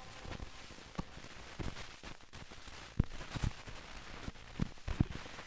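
Surface noise from a 45 rpm vinyl single with the music over: a steady hiss with scattered clicks and pops, the sharpest about three seconds in and near the end.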